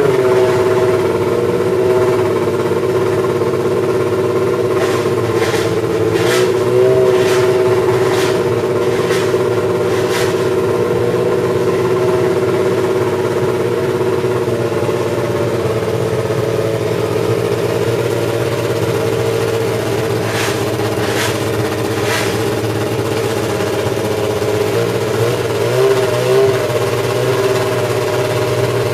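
Brabham BMW BT52's 1.5-litre turbocharged BMW inline-four Formula One engine running at a steady idle, with small throttle blips near the start, about a quarter in and near the end. Clusters of sharp clicks come about a fifth of the way in and again past two-thirds.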